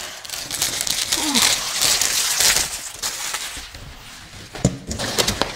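Packaging being handled out of a cardboard box, rustling and crinkling, then quieter with a couple of sharp knocks near the end.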